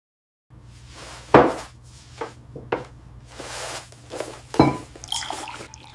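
A few sharp knocks and thuds, two of them louder, over a steady low hum and soft noisy swells, starting after a moment of silence.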